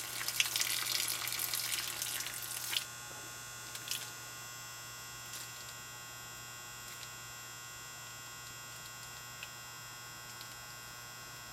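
A man urinating onto dry leaves: the stream splashes steadily for about three seconds, then stops suddenly. After that only a steady electrical hum is left, with a few faint clicks.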